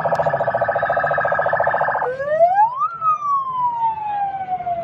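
Convoy escort vehicle's siren: a rapid pulsing tone that switches about two seconds in to a wail, rising for about a second and then slowly falling.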